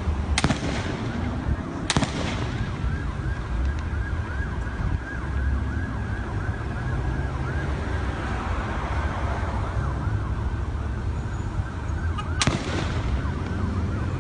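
Three gunshots, two about a second and a half apart near the start and one near the end, each ringing out briefly. Between them an emergency siren yelps in a fast repeating wail.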